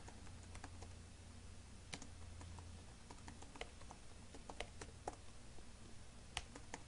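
Faint, irregular keystrokes on a computer keyboard as a terminal command is typed, over a low steady hum.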